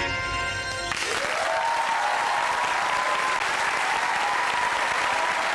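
The band's final held chord rings for about a second and cuts off. Then the studio audience breaks into steady applause.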